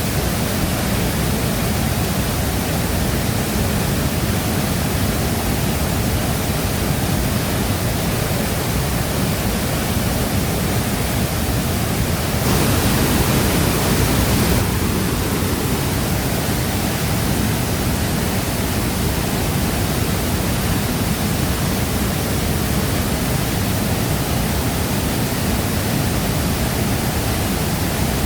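Shifen Waterfall pouring: a steady, loud rush of falling water, briefly louder and brighter for about two seconds a little past the middle.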